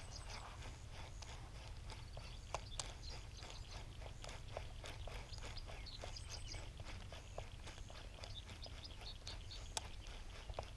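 Faint quick clicks, about three or four a second, from a fishing line being reeled in while a topwater popping frog is worked across the pond.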